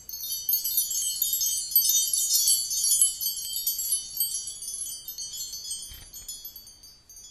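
Wind chimes tinkling: a dense shower of quick, high, bell-like notes that thins out and fades away over the last few seconds.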